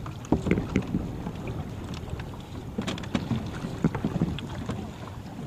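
Wind buffeting the microphone over small waves lapping against plastic kayak hulls, with scattered short knocks and splashes.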